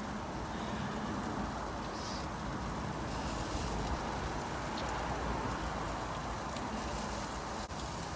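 Chicken and vegetables sizzling steadily in a frying pan over a portable gas camping stove, with a few faint clicks of a utensil in the pan.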